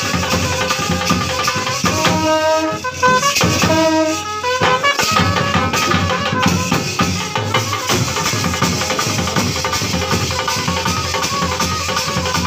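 Live street brass band playing: trumpets over marching bass drums beating a steady rhythm. From about two seconds in, the trumpets play a clear phrase of short held notes; after a brief drop at about four and a half seconds, the drums carry on.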